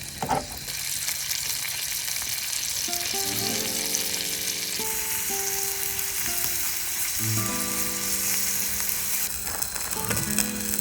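Food frying in a pan with a steady sizzle that grows louder about a second in and again about five seconds in.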